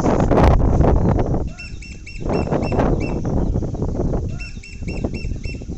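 Small birds chirping in two quick runs of evenly repeated high notes, over bursts of loud rustling noise.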